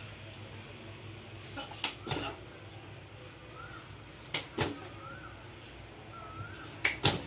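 A person doing push-ups on a concrete floor: a few scattered soft taps and knocks over quiet background. Faint short warbling bird chirps come in between.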